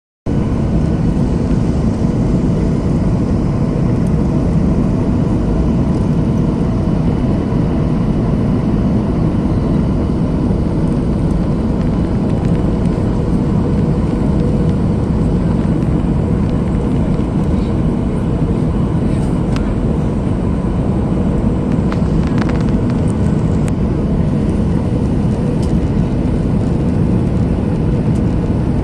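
Steady, unbroken engine and airflow noise of a Ryanair Boeing 737 jet airliner coming in to land, strongest in the low range. A few faint clicks come in the second half.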